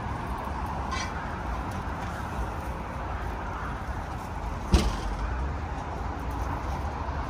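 Steady low outdoor rumble, with a single sharp thump about five seconds in as flat-pack boxes are loaded from a trolley into the open cargo area of an SUV.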